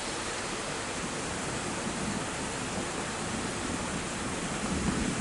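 Steady hiss of rain falling, an even noise with no distinct events.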